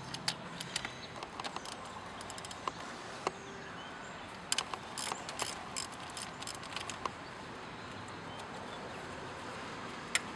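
Scattered metallic clicks of a 12 mm socket wrench working a nut on the starter's electrical connection, irregular with a short run of clicks about halfway through, over a steady outdoor hiss with a faint high whine.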